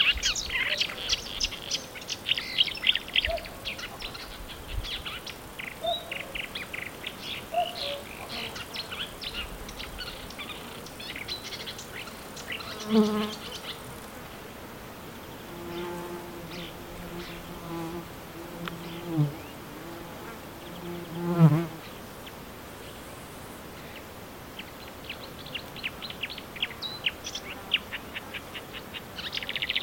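A marsh warbler's fast chattering song rises from the reeds, then breaks off while a flying insect buzzes close past the microphone several times. The buzzes have a low steady hum, and the loudest pass comes a little past the middle. The song starts again near the end.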